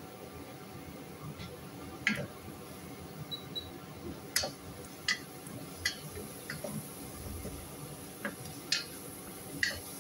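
Wooden spatula scraping and tapping against a nonstick pot while stirring diced onions, sharp irregular knocks about once a second over a faint steady hiss.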